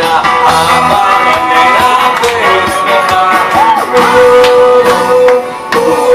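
Music with singing: a loud song with guitar and a steady beat.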